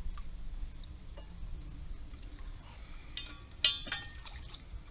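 A wrench clinking against the metal nut and hub of an inboard boat propeller while the nut is loosened: a few sharp clicks, the loudest a ringing clink about three and a half seconds in, over a low steady rumble.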